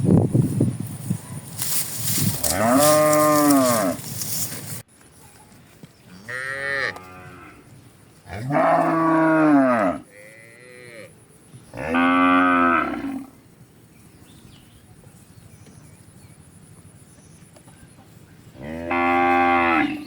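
Cattle mooing back and forth, about six long moos, each rising and then falling in pitch. A loud rushing noise lies under the first moo and stops abruptly.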